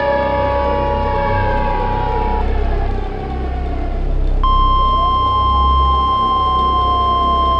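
An outdoor warning siren winding down, its chord of tones falling in pitch. About four and a half seconds in, a loud steady weather-radio alarm tone cuts in suddenly, while the siren's pitch slides up once and then slowly falls beneath it.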